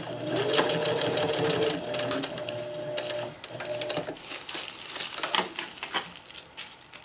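Electric sewing machine running steadily, stitching through ripstop nylon and tissue paper at the end of a seam, then stopping about four seconds in. After that come light rustling and clicks as the fabric and paper are handled at the machine.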